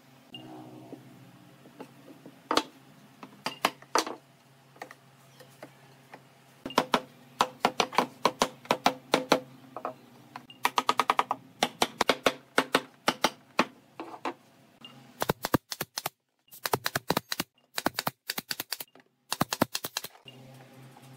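A nail gun firing fasteners into pine boards: a few single sharp shots, then quick runs of shots with short breaks in between.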